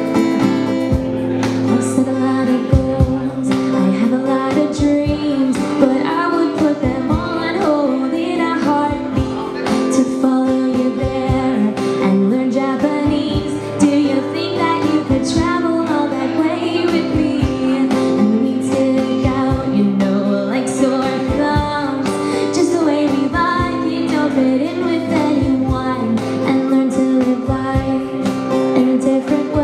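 Live acoustic folk-pop song: a woman singing over an acoustic guitar, with a cajon beating out the rhythm.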